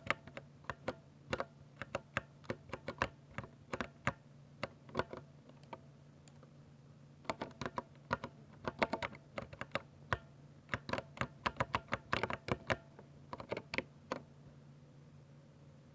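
Typing on a 60% mechanical keyboard with linear silver switches: quick runs of key clicks and clacks in bursts, with a short pause partway through, stopping shortly before the end.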